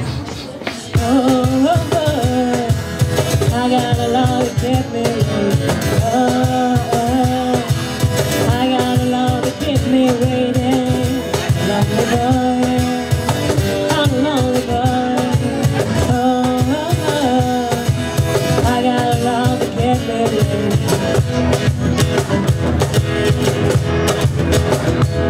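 Live band playing: a woman singing into a microphone over a strummed acoustic guitar and a steady percussion beat. The voice drops out near the end while guitar and percussion play on.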